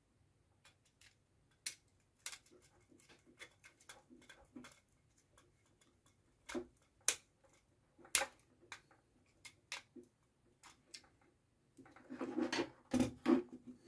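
Small plastic and metal clicks and scrapes of a relay socket being handled while a wire is pushed into a screw terminal and the terminal screw is turned with a screwdriver. A denser clatter of handling noise comes near the end.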